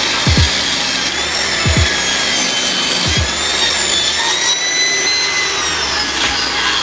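Craftsman table saw running and ripping a wooden board, its high whine dipping in pitch under load about halfway through and then recovering. Background music with a regular kick-drum beat runs underneath.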